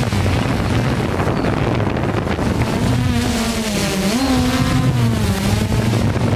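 Hubsan quadcopter drone's motors and propellers buzzing steadily, with wind noise on the microphone. The buzz dips in pitch and climbs back up about four seconds in.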